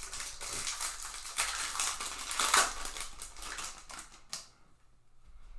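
Crinkling and rustling as a foil trading-card pack wrapper is torn open and the stack of baseball cards is handled, a dense run of crackles, loudest about halfway through and falling away near the end.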